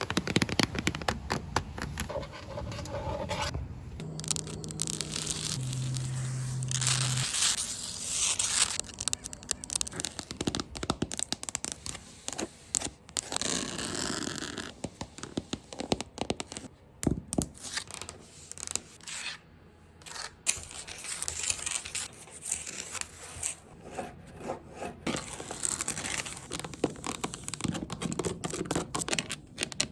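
Scratching on a floor: quick, irregular scrapes and ticks, with a change of sound a few seconds in.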